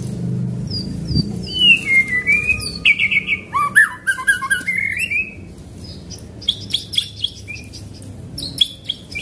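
White-rumped shama singing: a run of whistled notes sliding down, then fast, rolling chattering phrases, trailing off into sharp ticking notes near the end.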